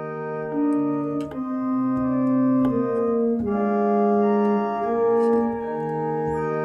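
Computer pipe organ played from its keyboards: full, sustained chords that move to a new chord about once a second.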